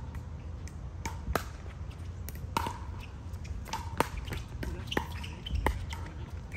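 Pickleball paddles striking the hollow plastic ball in a rally: about eight sharp pocks at uneven spacing, each with a brief ring, over a low steady rumble.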